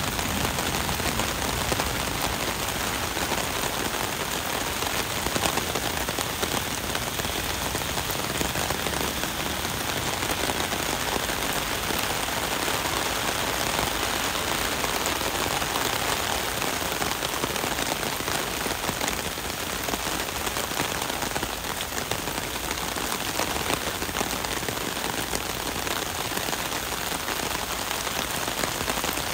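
Heavy rain falling steadily on pavement and street, a dense even hiss.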